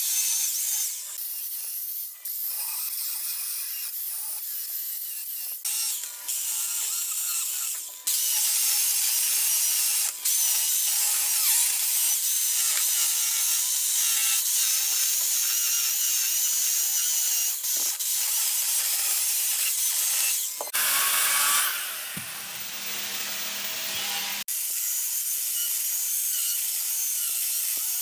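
Corded electric chainsaw cutting and carving into a block of wood: a steady high whine of the chain biting the wood, breaking off and starting again abruptly several times.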